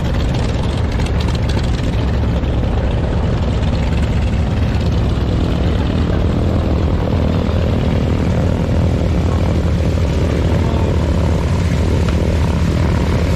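Nine-cylinder radial aircraft engines running at taxi power: a steady, low, many-toned drone that holds level throughout.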